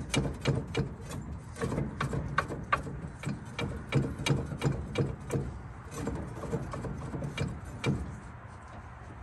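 Irregular metal clicks and knocks, a few a second, from a tool working at the cylinder head of a seized old truck engine. They stop about eight seconds in.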